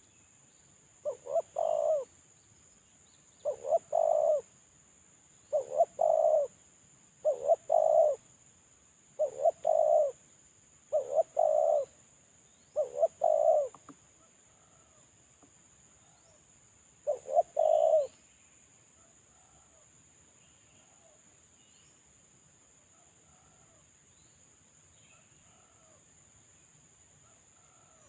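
Spotted dove cooing: eight repeated coo phrases, each a quick note run into a longer one, coming about every two seconds and then stopping about 18 seconds in. A faint steady high-pitched whine runs underneath.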